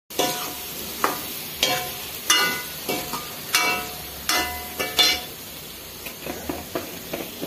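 A metal ladle knocks and scrapes against a metal kadai while stirring vegetables frying in oil, with a steady sizzle underneath. The clanks ring and come about once every two-thirds of a second, then turn softer after about five seconds.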